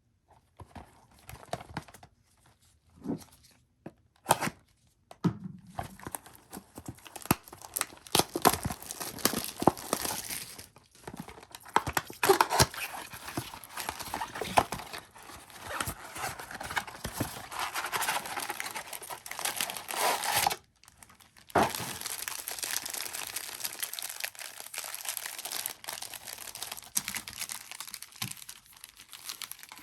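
Packaging of a trading-card blaster box being handled and torn open: a few scattered taps and knocks first, then continuous tearing and crinkling with one short pause about two-thirds of the way through.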